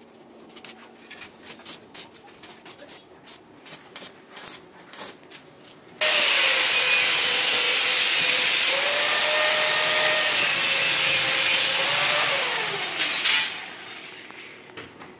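Electric angle grinder cutting stainless steel railing tube. After a few light clicks and taps, it starts abruptly about six seconds in with a loud hissing cut and a steady motor whine that dips under load. Around thirteen seconds the whine falls away as the disc spins down.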